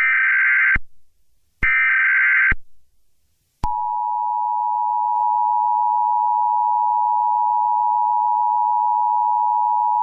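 Emergency Alert System SAME header: the last two of three warbling digital data bursts, each about a second long, then after a short gap the steady NOAA Weather Radio warning alarm tone (1050 Hz) starts a little over three seconds in and holds. Together they open a new weather alert broadcast.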